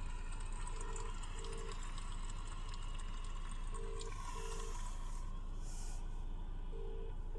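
Telephone ringback tone from a mobile phone: a double ring, two short beeps close together, repeating about every three seconds while the call goes unanswered. A steady low car-cabin hum runs underneath.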